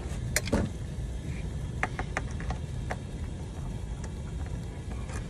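Steady low mechanical hum with a handful of sharp clicks and taps: a pair about half a second in, and several more around two to three seconds in.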